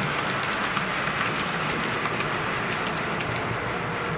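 Model train running along the track, a steady whirring rumble of motor and wheels on rails with light, irregular clicks from the rail joints.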